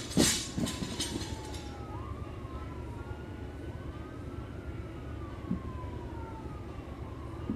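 A loaded barbell dropped on the floor: one heavy thud, then a few smaller knocks over the next second as it settles. A faint rising and falling wail carries on in the background.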